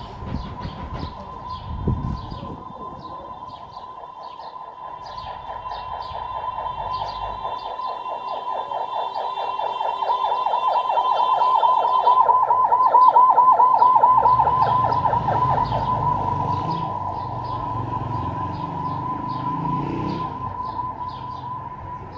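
A siren sounding throughout, growing louder to a peak a little past the middle, where it warbles fast, then fading again.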